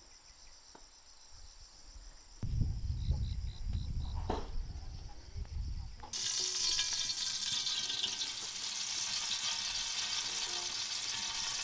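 Food tipped into hot oil in a pan, starting to sizzle suddenly about six seconds in and then frying steadily. Before that there is a faint insect buzz and then a low rumble.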